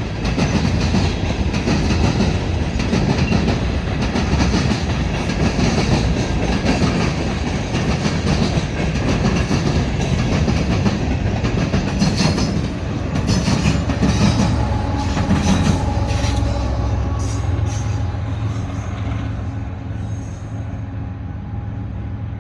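Empty cars of a BNSF unit rock train rolling past: a steady rattling rumble of wheels over rail joints, with a thin wheel squeal in the second half. The noise eases off over the last few seconds as the train moves away.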